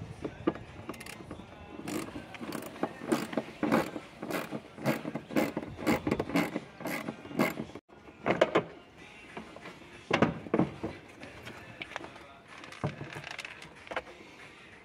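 Small socket ratchet clicking in quick strokes, about three a second, as bolts are loosened. It stops about halfway, and a few scattered knocks follow as the plastic step trim is handled.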